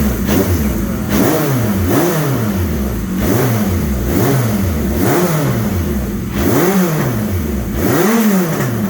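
A 1983 Suzuki GS1100E's air-cooled inline-four being blipped repeatedly, revving up and dropping back about once a second, with the last two blips higher. The exhaust is crackling.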